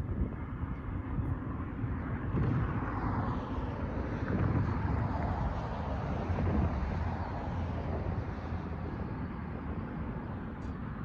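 Road traffic passing over the crossing: a steady rushing noise that swells as a vehicle drives by around the middle.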